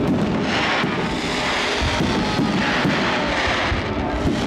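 Fireworks display crackling and hissing in swells every second or two, with music playing at the same time.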